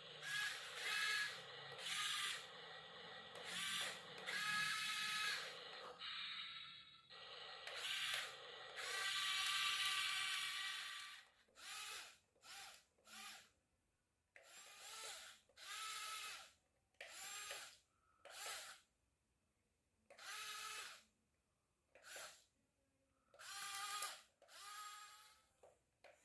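Small electric motors of a radio-controlled model excavator or truck whirring in repeated short bursts, starting and stopping as the controls are worked. The bursts come close together at first, then with pauses of near quiet between them.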